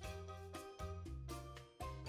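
Background music: a light tune with a steady bass line and melody notes changing in an even rhythm.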